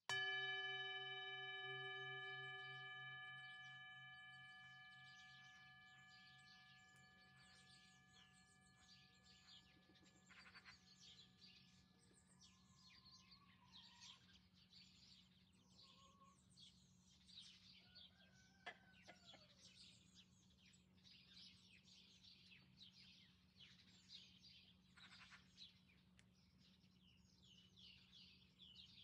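A metal singing bowl ringing out after a strike, its wavering tone fading away over several seconds. Then faint small birds chirping and singing throughout.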